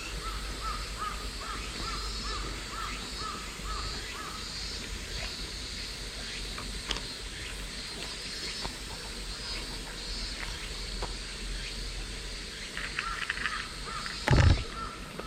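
A bird calling in a quick run of short, repeated chirps, about three a second, for the first few seconds, over a steady high buzzing hiss. Near the end comes one loud, short thump.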